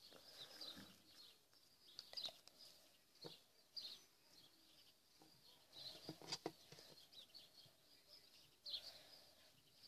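Near silence with faint bird chirps at intervals and a few soft sticky clicks and taps from hands kneading and stretching homemade flour slime.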